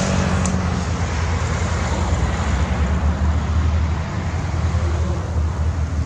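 Rotax 582 two-stroke engine of a Loehle 5151 Mustang ultralight replica running steadily in flight, a continuous drone with a low hum.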